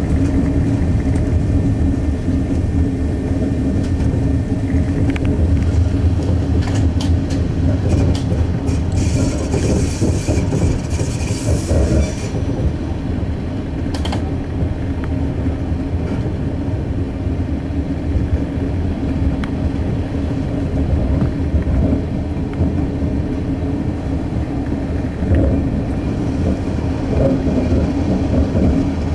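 Diesel railcar under way, heard from the driver's cab: a steady engine drone over the low rumble of wheels on rails. A short hiss comes about a third of the way in, then a single sharp click.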